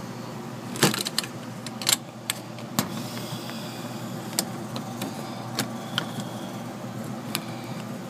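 Geothermal heat pump running during refrigerant charging, a steady hum with several sharp clicks and knocks, the loudest about one and two seconds in.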